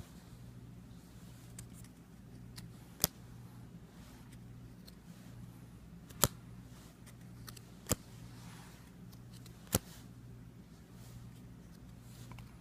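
Trading cards being handled quietly: four sharp clicks spread a couple of seconds apart over a low steady hum.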